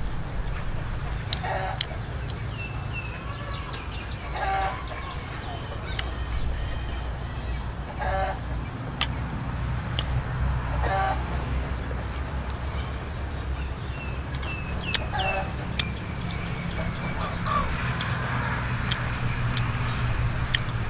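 Chickens clucking in short calls every few seconds over a steady low rumble, with occasional sharp clicks.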